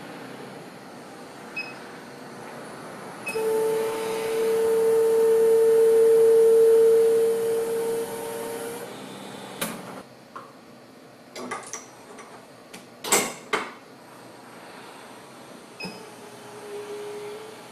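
Laboratory machine running with a steady hum and a mid-pitched tone for about five seconds, then a handful of sharp clicks and knocks, and the tone briefly again near the end.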